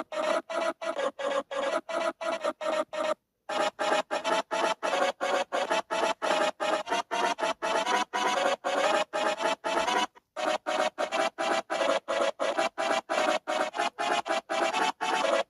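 A rapid run of short electric buzz and crackle sound effects played one after another, several a second, each cut off by a brief silence. There are two slightly longer pauses, about three seconds in and about ten seconds in.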